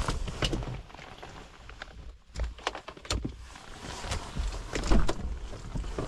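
Rustling, clicks and knocks as someone moves about inside a small Daihatsu kei van, pushing past cloth window curtains and opening the driver's door. The loudest knock comes about five seconds in, over low rumbling from handling the camera.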